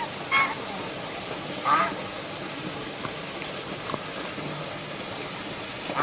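A white domestic duck quacking: three short quacks in the first two seconds, then quiet apart from faint ticks.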